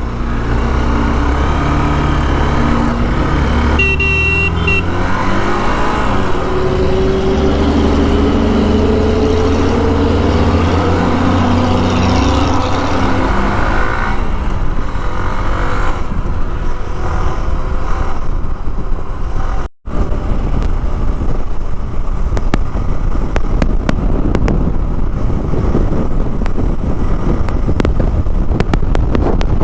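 Hero Xpulse motorcycle being ridden, its single-cylinder engine running with the pitch rising and falling as the throttle changes, and wind rushing over the microphone. A short horn beep about four seconds in. After a sudden break about twenty seconds in, wind buffeting the microphone is the main sound.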